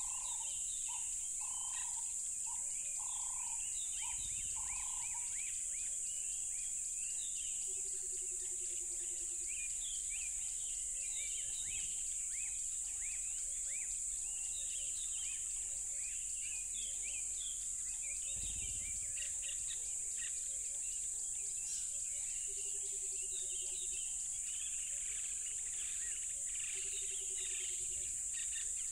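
Steady high-pitched drone of a cricket chorus, with many birds chirping over it. A lower call repeats about once a second for the first five seconds, and a short low trill sounds three times.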